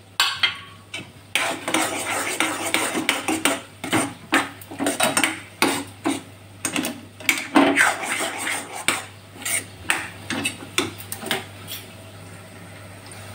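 A metal spoon scraping and clinking against a metal kadhai as thick, crumbly egg-yolk halwa is stirred briskly, in irregular strokes. The stirring dies down near the end.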